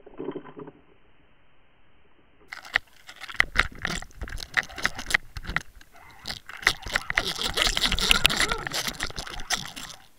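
Dense metallic rattling and clattering of the underwater camera rig, its swivel and hardware knocking against the housing, as a hooked pike thrashes on the swimbait. A short thud comes right at the start, and the rattling builds from a few seconds in, loudest near the end, then stops suddenly.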